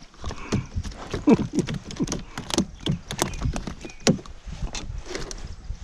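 Irregular knocks and clunks against a canoe hull as gear and feet move on the canoe floor, some strikes ringing briefly.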